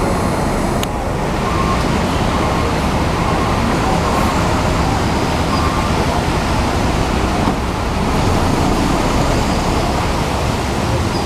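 Rain falling steadily, mixed with running bus engines: a loud, even wash of noise throughout.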